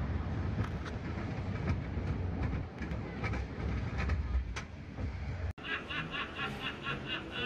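Small steel roller coaster train rolling along its track into the station, with a steady low rumble and scattered clacks from the wheels. About five and a half seconds in it cuts off suddenly, and the recorded laughter of a laughing sailor automaton starts, a quick run of repeated laughs.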